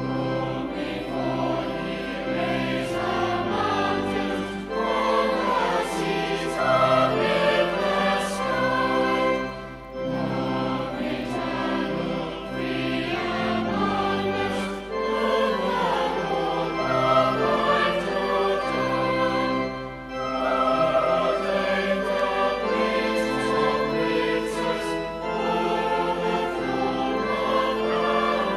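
Voices singing a hymn in chorus over held accompanying chords, with short breaths between lines about every five seconds.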